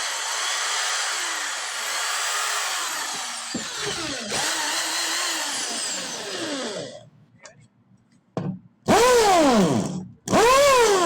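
Electric drill motor running continuously, its pitch drifting a little. It stops about seven seconds in, followed by two short, loud bursts that each rise and then fall in pitch.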